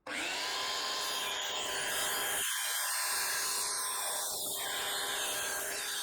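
DeWalt DWS779 miter saw running steadily with a 60-tooth construction-grade blade, cutting aluminum extrusion.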